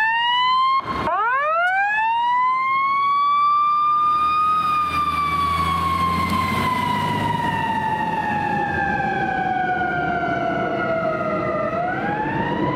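Fire squad truck's siren on a slow wail: it winds up, cuts out briefly about a second in and winds up again, peaks a few seconds in, then falls slowly for about seven seconds before starting to rise again near the end. The truck's diesel engine hums underneath as it passes close by.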